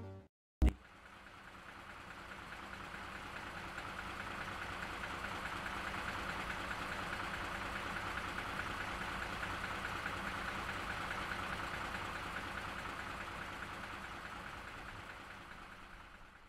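Tractor engine running steadily, fading in and then fading out near the end, with a sharp click just before it begins.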